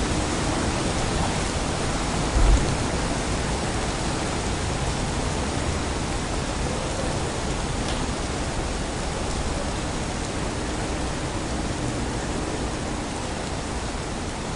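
Steady, even hiss of a rain-wet city street. A short low thump comes about two and a half seconds in.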